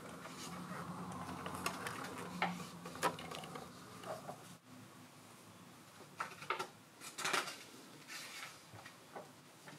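Handling noise from a plastic RC scale model being held and turned over: scattered light clicks, taps and short rustles. A faint low hum fades out about halfway through.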